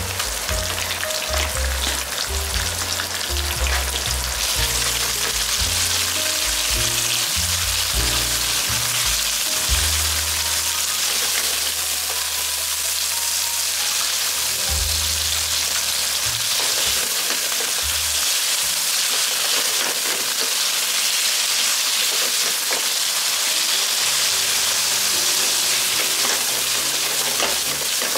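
Thin-sliced pork sizzling steadily in hot oil in a cast-iron pan over a high gas flame, stirred and spread with chopsticks. A low background music line plays underneath.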